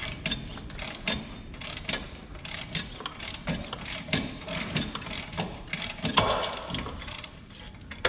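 Hand ratchet wrench clicking in short, irregular strokes on a nut at a truck's front steering knuckle, with a louder clatter about six seconds in. The stud is spinning along with the nut, so the ratchet keeps clicking without freeing it.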